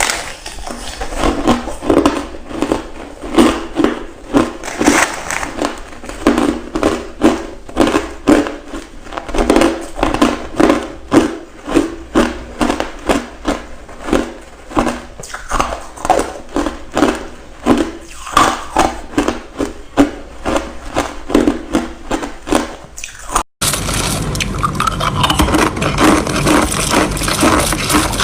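Close-miked crunching and chewing of ice, in regular crunches about two a second. After an abrupt cut about 23 seconds in, the crunching turns into a denser, steadier crackle.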